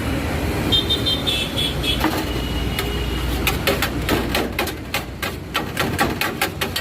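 Rapid knocking of a knife chopping on a cutting board, several strokes a second, starting about three and a half seconds in, over a steady low traffic rumble.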